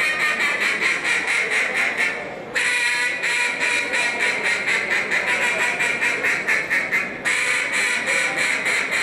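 Hand-blown duck call sounding a rapid, unbroken run of quacks in a contest calling routine. It stops briefly for a breath about two seconds in and again near the end.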